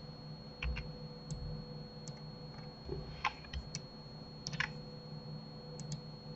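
Scattered clicks of a computer mouse and keyboard, about a dozen, several in quick pairs, over a faint steady electrical hum.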